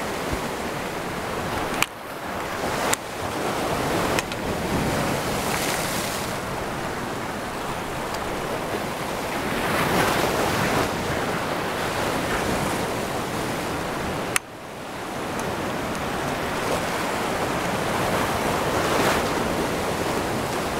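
Surf washing and breaking over reef rocks, with wind on the microphone. It swells louder about halfway through and again near the end, and is broken by a few sharp clicks.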